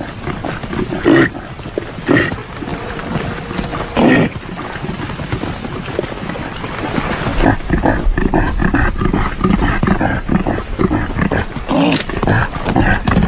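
Caribou (reindeer) grunting: a few separate loud grunts in the first four seconds, then from about halfway in a dense, continuous run of short grunts over a low rumble.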